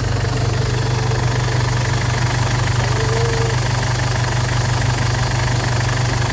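Ford Everest's diesel engine idling steadily with an even, rapid clatter.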